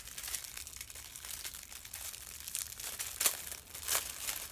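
Packaging crinkling and rustling as a small boxed item is unwrapped by hand, with two sharper crackles near the end.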